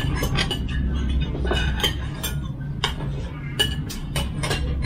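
Spoons and cutlery clinking against bowls and plates while people eat: many light, irregular clinks over a steady low hum.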